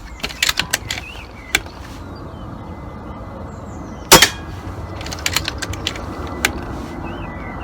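A pre-charged pneumatic air rifle fires once, a single sharp crack about four seconds in. Before and after the shot come runs of small light clicks from the rifle's action being worked to load the next pellet.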